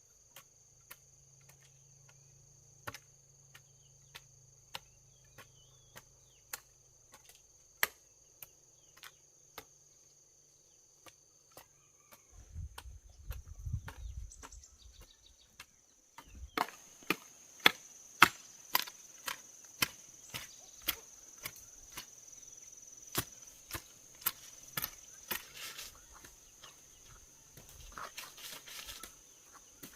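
A blade chopping bamboo: a series of sharp wooden knocks, spaced out at first, then louder and quicker from about halfway through. A steady high insect drone runs underneath.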